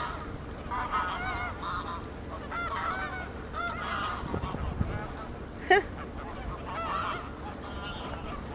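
A flock of Canada geese honking, many short calls overlapping throughout, with one louder, sharper honk from a nearby bird about two-thirds of the way through.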